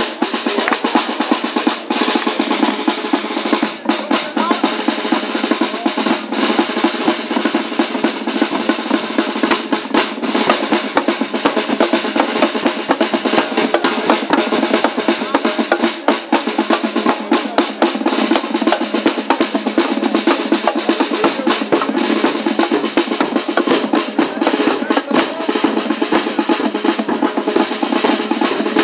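Street brass band playing, led by snare drums and a bass drum beating a fast, dense rhythm.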